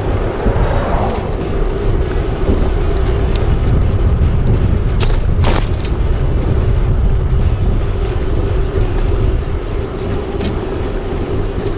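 Wind buffeting the microphone of a camera on a moving bicycle, a heavy steady rumble, with two sharp clicks about five seconds in.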